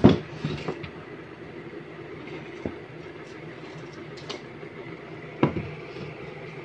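Melamine-faced particle board panels knocking against each other and the workbench as they are handled and set down: a loud knock at the start, a few lighter taps, and another loud knock about five and a half seconds in, over a steady low hum.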